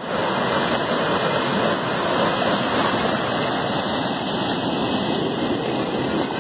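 Storm runoff rushing steadily through a drainage gully in flood after heavy rain, churning whitewater.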